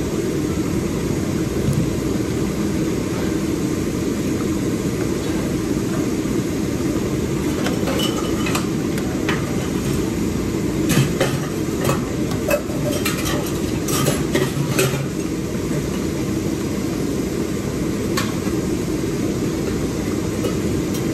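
A metal utensil clinking against a cooking pot a dozen or so times in quick, uneven taps, mostly in the middle stretch with one more near the end, as the boiled vegetables are checked for tenderness. A steady low rumble runs underneath.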